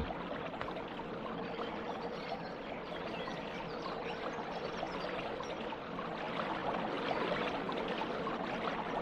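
Steady rush of river water pouring over a small weir, starting abruptly and growing slightly louder.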